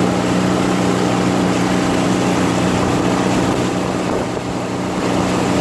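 Motor of an inflatable boat running steadily under way: a steady low engine hum under a rushing hiss of wind and water, easing slightly about four seconds in.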